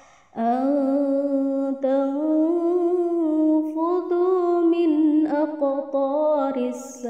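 Quran reciter's voice chanting in long, drawn-out melodic notes. The voice starts after a short breath and rises slowly in pitch, wavering through ornamented turns.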